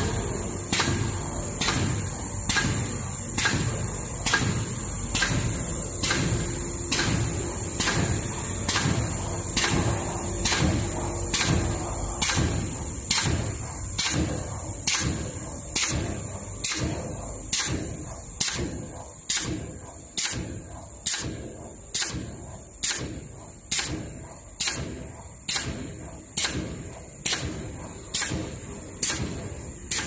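Popcorn-bag aluminium foil mounting machine running, with a sharp clack about once a second from each machine cycle, over a steady high-pitched whine.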